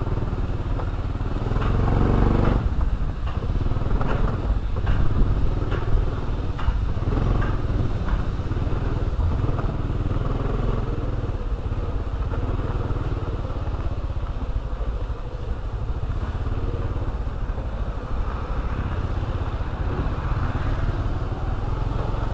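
Honda motor scooter's engine running steadily while riding, with a series of short knocks and rattles in the first several seconds as it bumps over rough ground.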